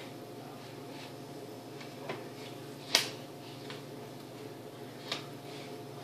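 A few scattered sharp taps and clacks, one much louder about three seconds in, from a toddler shuffling across a tile floor in oversized adult slippers, over a steady low hum.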